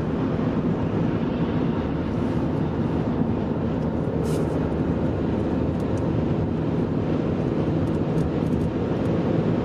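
Car engine and road noise heard from inside the cabin while driving, a steady drone.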